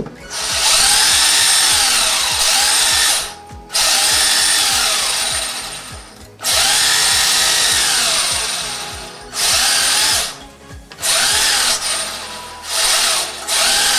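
The Exceed RC Drift Star's 540 brushed electric motor spinning the wheels free in the air, revved in about six throttle bursts, its whine rising and falling in pitch with each burst.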